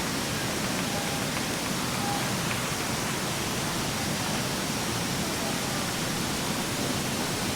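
Steady rushing of a nearby waterfall or river rapids, an even, unbroken roar of water.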